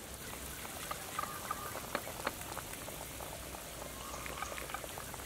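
Hot pumpkin and beef-bone soup broth, a dense patter of small pops, drips and ticks over a steady hiss.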